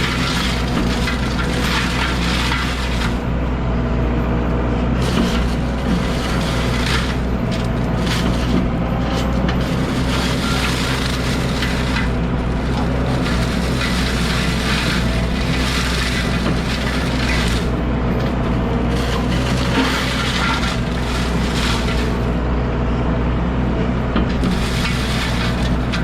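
Diesel excavator running steadily under load while a forestry mulching head grinds through brush, the chewing coming in irregular bursts every second or two.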